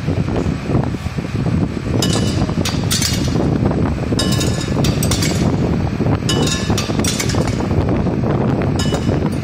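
Tablet inspection belt running with a steady low whir, while tablets dropped onto its stainless-steel chute clatter and clink in short bursts several times from about two seconds in.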